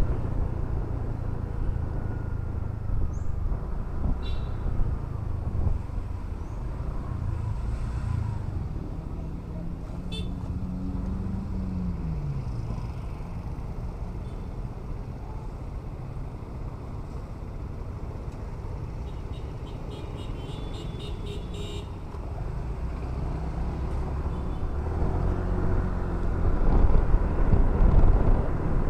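Honda scooter ride through city traffic: low rumbling wind on the camera microphone mixed with engine and road noise, getting louder toward the end. A steady tone drops in pitch about twelve seconds in.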